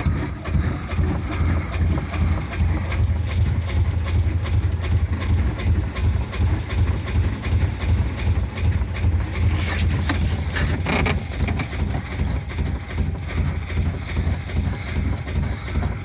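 Small sailing boat's engine turning over with a steady, pulsing low rumble. It is reluctant to start.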